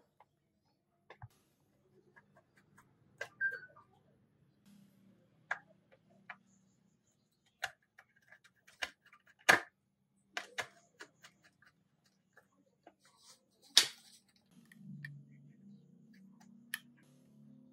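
Screwdriver working the screws of a plastic panel-mount power socket on a sheet-metal case: scattered light clicks and scrapes with a few sharper knocks, the loudest about halfway and about three-quarters of the way through.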